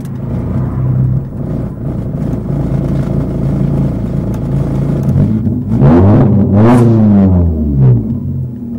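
Alfa Romeo GT's tuned, bored-out naturally aspirated four-cylinder engine heard from inside the cabin, running at low speed and then revved up and down twice about six and seven seconds in.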